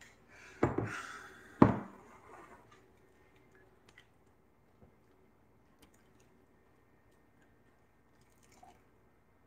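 Stainless-steel soup pot set down on a countertop: two sharp knocks about a second apart, the second the louder, each trailing off with a short ring. After that, only faint scattered taps of a ladle in the soup.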